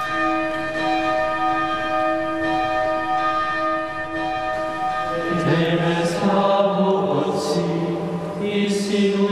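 A monastery bell, rung by its rope, sounds one long ringing tone that fades out over about five seconds. About five seconds in, the monks' male voices begin chanting together in the choir.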